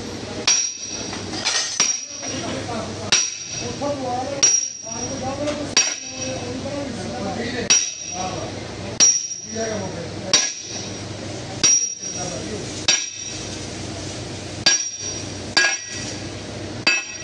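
Heavy steel bar rammed down again and again onto a sleeve driver, driving a cylinder sleeve into an engine block's bore: sharp metallic clanks with a short high ring, about one every second and a quarter.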